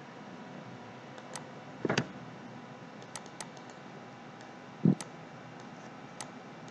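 A few scattered computer mouse clicks and soft desk knocks over a faint steady room hum, the loudest about two seconds in and a dull one about five seconds in.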